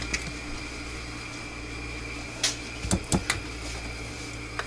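A few light knocks and taps of soap-making utensils and containers being handled, bunched together about halfway through, over a steady background hum.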